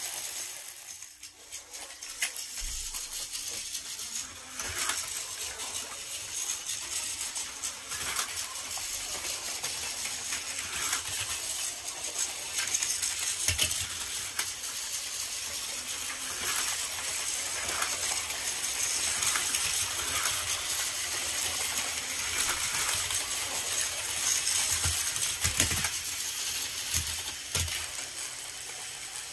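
Battery-powered Plarail toy trains running on blue plastic track: a steady high motor whir with many small clicks and clacks of wheels over the track joints. A few louder knocks come near the end.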